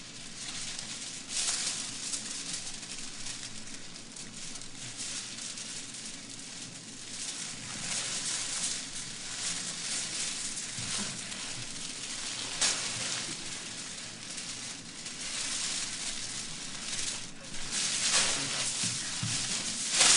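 Crinkling and rustling of a long silver foil sheet as it is wrapped around a body and dragged over a stage floor, in irregular swells, loudest near the end when the foil is swung about.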